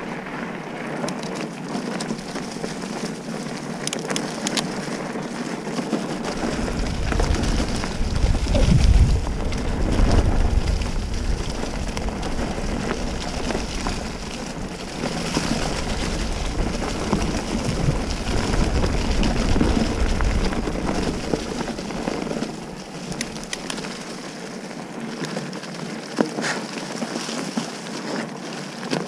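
Mountain bike tyres rolling fast over a dirt and leaf-litter trail, a steady crunching rattle of the bike over the rough ground. A deep rumble joins in from about a fifth of the way through to about three-quarters, loudest early on, and a sharp knock sounds near the end.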